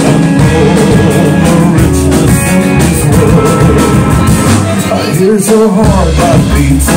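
A live rock band with a swing feel playing loud, with drum kit and upright double bass among the instruments.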